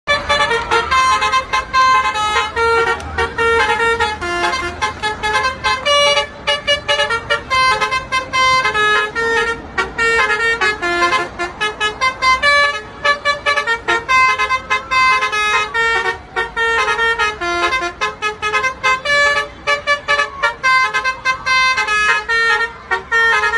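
Bus Basuri telolet horn playing a fast melodic tune: many short horn notes changing pitch several times a second, over a low rumble.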